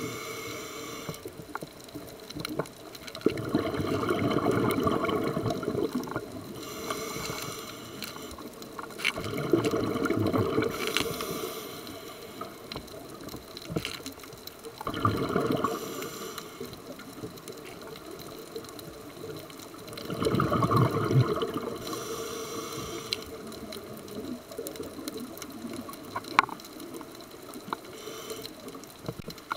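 Scuba diver breathing through a regulator underwater: a short hiss on each inhale, then a louder gurgling rush of exhaled bubbles, repeating about every five to six seconds.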